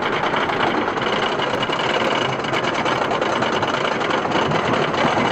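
Wooden roller coaster train climbing its chain lift hill, with the lift chain and anti-rollback ratchet making a steady, rapid clatter.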